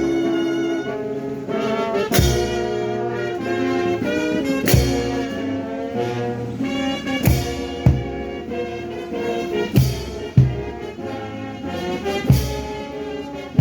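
Slow brass music with held notes and a heavy drum stroke about every two and a half seconds.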